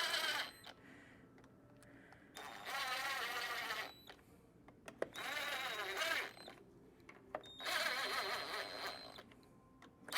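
Power drill running in three bursts of about a second and a half each, its pitch wavering under load, with a click or two between, as it spins pump manifold bolts down until the plate sits flat, not tightening them.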